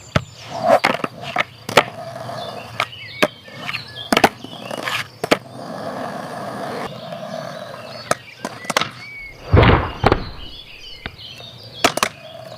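Plastic toy being washed by hand in a tub of water: scattered sharp clicks and knocks of plastic against plastic. A louder, longer burst of noise comes about ten seconds in.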